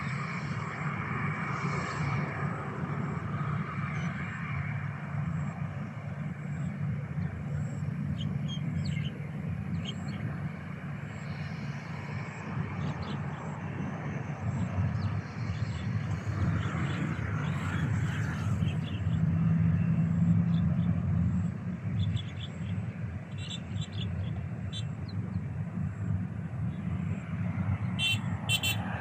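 Distant airport noise: a steady low rumble from far-off aircraft and traffic, swelling about twenty seconds in. A few faint high chirps come through now and then.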